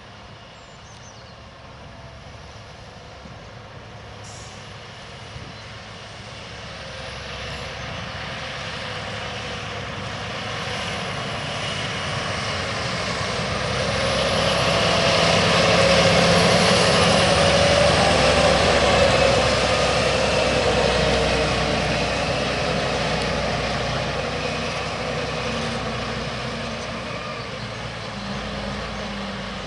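Claas Xerion 4200 tractor with a slurry tank, pulling a Horsch Tiger cultivator through the soil: its engine works under load along with the noise of the cultivator in the ground. It grows louder as it nears, is loudest about halfway through, then fades as it moves away.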